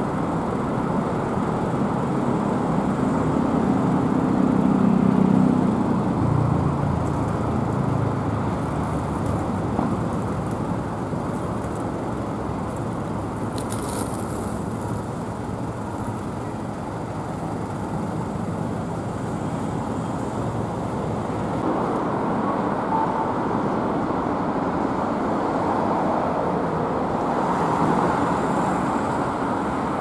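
City road traffic: a steady wash of engines and tyres from passing vehicles. One vehicle's engine swells and is loudest about five seconds in, and there is a short hiss midway through.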